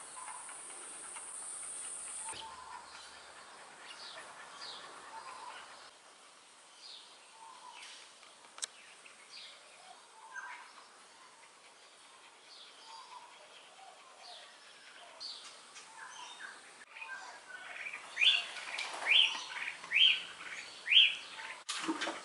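Birds chirping with short, sharp calls scattered through, then a run of about five loud chirps in quick succession near the end. A high, steady hiss sits under the first couple of seconds.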